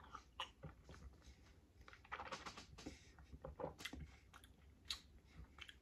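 Faint gulping and mouth smacks as a man drinks a sports drink from a bottle and then tastes it, with scattered soft clicks of lips and tongue.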